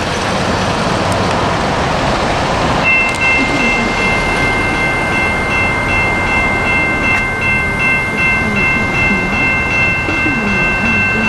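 Road traffic going by, then about three seconds in the crossing's General Signals Type-2 electronic bells start ringing: a rapid, evenly repeating electronic ding that keeps going. It is the crossing signal activating to warn of an approaching train.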